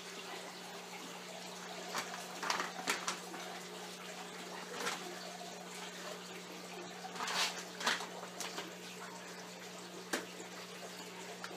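Water running and trickling through an aquaponics system's grow beds and plumbing, with short splashy surges every second or two over a steady low hum.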